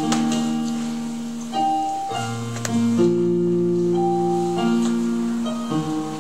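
Electronic keyboard playing slow, sustained chords that change every second or two.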